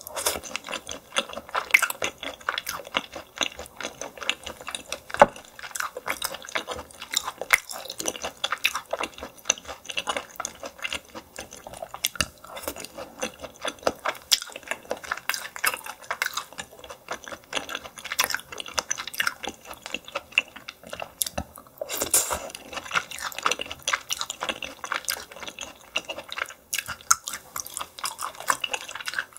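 Close-miked chewing of steamed yellow stingray: steady wet, smacking mouth sounds with many quick clicks.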